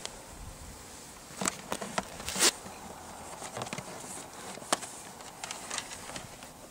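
Hand-handling noise as a dash cam power cable is pressed in behind a car's plastic interior trim and rubber door seal: scattered scrapes and clicks. The loudest is a short rasp about two and a half seconds in, then a sharp click a couple of seconds later.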